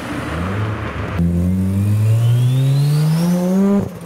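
Modified turbocharged car accelerating hard: after a rough pass-by engine note, the sound changes abruptly about a second in to an engine pitch climbing steadily in one long pull, with a faint high whine rising alongside it. It cuts off shortly before the end.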